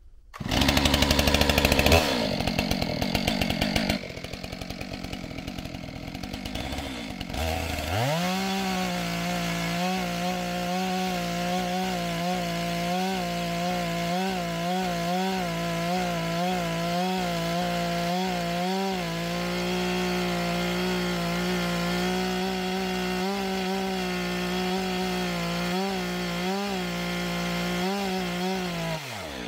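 Gasoline chainsaw cutting off the top of a wooden post. It runs unevenly at lower speed for the first few seconds, then revs up about seven seconds in and holds a steady high engine note that wavers slightly under load as it cuts. It winds down just before the end.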